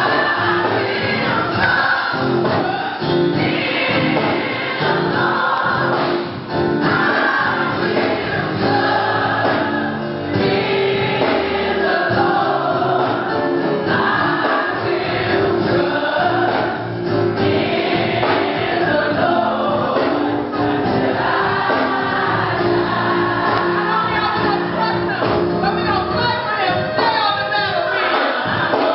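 Gospel singing: women singers on hand-held microphones leading, with many voices joining in as a choir, loud and continuous.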